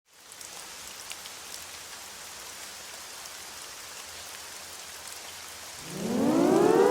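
Steady rain falling. About six seconds in, a civil-defense-style siren starts winding up, rising in pitch and quickly growing far louder than the rain.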